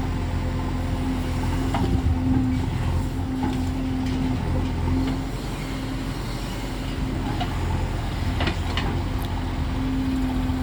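Heavy diesel machinery engine running steadily with a low hum, with a few short clanks along the way.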